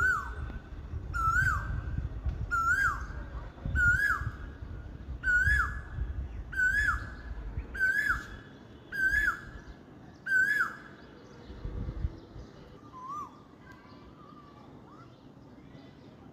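Asian koel calling: a series of about nine loud, evenly repeated calls, one every second and a half or so, each a quick rising note that drops sharply, then a couple of fainter calls near the end. A low rumble runs underneath the first calls.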